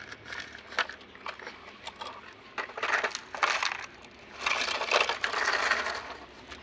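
Toys being handled: scattered clicks, with two longer stretches of clattering, scraping plastic noise, the first about two and a half seconds in and the second just after four seconds.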